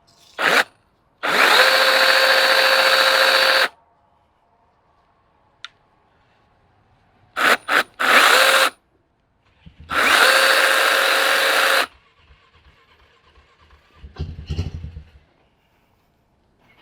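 Small cordless electric chainsaw (limb lopper) run in short trigger bursts: a steady motor and chain whine that starts and stops abruptly, three runs of about one to two and a half seconds with a few quick blips between. It is being run to check the chain oiler, which does not seem to be delivering any oil to the chain.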